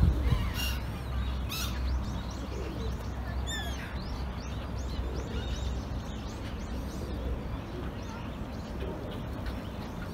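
Many small birds chirping and twittering in quick, overlapping calls, over a steady low rumble. A feral pigeon gives a low coo now and then as part of its courtship display.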